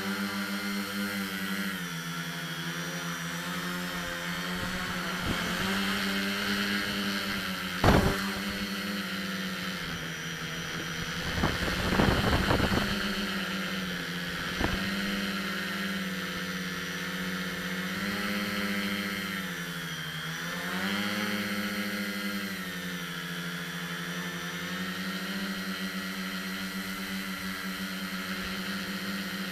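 Electric motors and propellers of a multicopter, heard from its onboard camera: a steady pitched whine that sags and rises as the throttle changes, with a clear dip about twenty seconds in. A sharp knock about eight seconds in and a short burst of noise around twelve seconds in.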